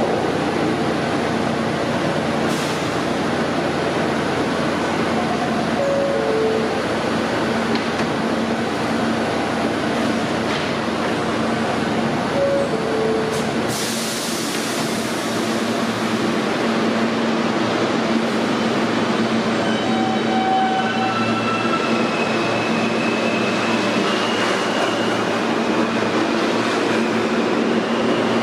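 New York City Subway R160A train standing at the platform, its equipment humming steadily, with a two-note falling chime sounding twice. About halfway there is a sharp burst of air hiss, then the train pulls out, its electric traction motors whining in rising steps over the rumble of the wheels.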